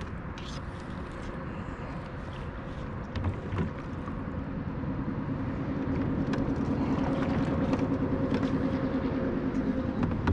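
Kayak paddle shifted and knocking lightly against the hull, over a steady outdoor rumble. A low steady motor hum grows louder in the second half.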